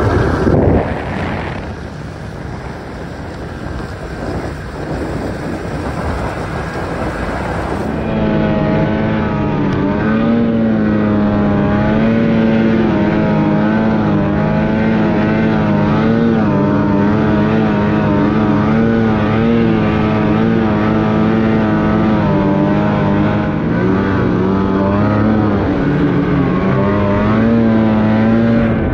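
Snowboard carving across wind-crusted snow, a noisy rush that is loudest at first. Then, after a cut about eight seconds in, a snowmobile engine running at steady high revs while climbing a snow slope, its pitch wavering slightly.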